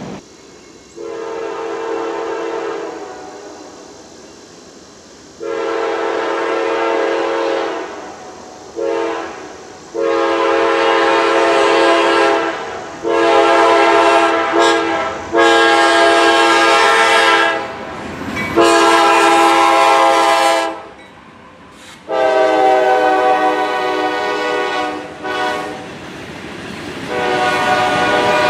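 Diesel freight locomotive's multi-chime air horn sounding a series of long blasts and a couple of short ones for the grade crossings. Its pitch drops slightly as the locomotive passes, about two-thirds of the way in. Under and between the blasts comes the rumble of the locomotives and freight cars rolling by.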